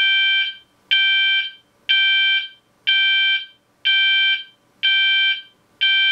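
Gent S3IP Mk2 fire alarm voice sounder beacon sounding its slow intermittent find-device tone: a steady electronic tone about half a second long, pulsing about once a second.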